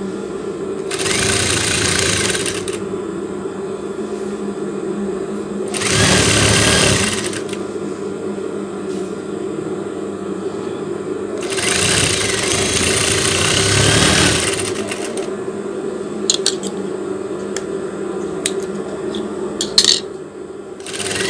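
Industrial lockstitch sewing machine stitching stretch lace in three runs, a short one about a second in, another about six seconds in and a longer one from about twelve seconds, over a steady motor hum. A few light clicks follow near the end.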